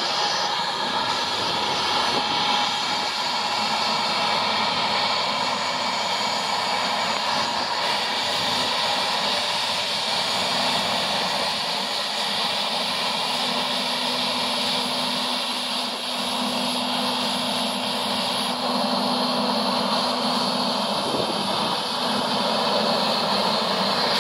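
Dassault Falcon 7X's three Pratt & Whitney PW307A turbofan engines running at taxi power as the jet rolls past: a steady whine over a rushing hiss. A low hum joins for several seconds past the middle, then drops away.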